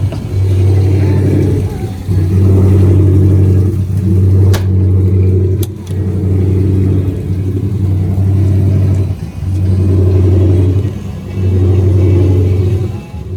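Inboard 350 V8 boat engine running at a steady speed, its level swelling and dipping every couple of seconds, with two sharp clicks near the middle.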